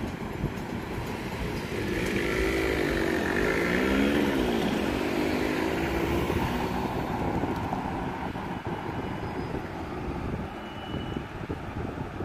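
A road vehicle's engine accelerating, its pitch rising, dropping about four seconds in as at a gear change, then rising again before fading, over steady street traffic noise.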